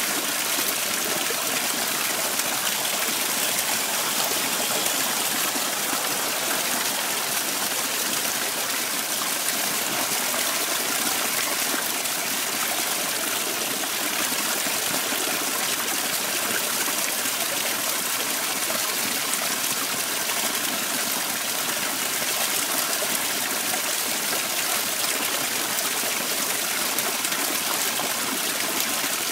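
Small garden waterfall splashing steadily down rocks into a pond.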